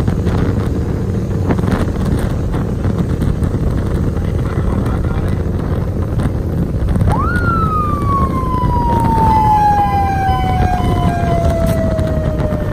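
Wind rush and engine rumble from a vehicle travelling at speed. About halfway through a siren starts, sweeping up quickly and then falling slowly in pitch for several seconds.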